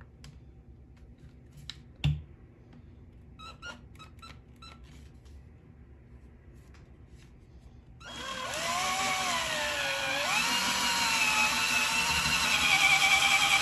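Hand drill with a spade bit boring a finger hole into a bowling ball. A few light clicks and a knock about two seconds in, then about eight seconds in the drill starts up, its whine wavering in pitch as the bit cuts into the ball, and it grows louder toward the end.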